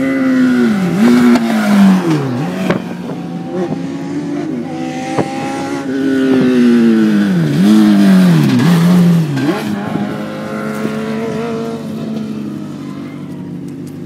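Two Legends race cars with Yamaha motorcycle engines driving past one after the other, engines revving hard. The engine note drops and climbs again several times as they lift off and accelerate, loudest early on and again midway, then fading as they move off.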